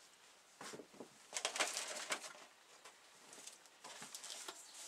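Faint rustling and light handling noises in short scattered bursts, from earmuffs and safety goggles being picked up and put on.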